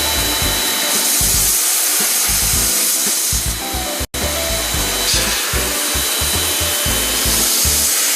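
Steady hiss of an air-conditioner cleaning robot's motor and spray, under background music with a low bass line. Everything cuts out for an instant about four seconds in.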